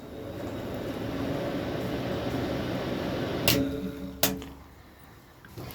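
A 12-volt reversible camper van fan running on 'air in', its airflow noise building over the first second and then holding steady. About three and a half seconds in, two switch clicks less than a second apart, and the fan winds down.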